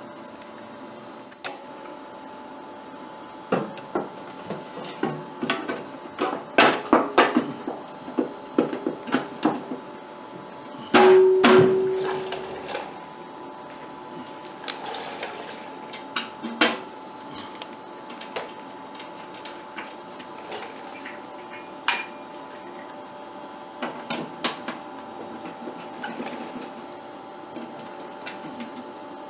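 Irregular knocks and clinks of hand tools and metal parts being handled during snowblower repair work, with one louder metallic clang that rings briefly about eleven seconds in. A steady hum runs underneath.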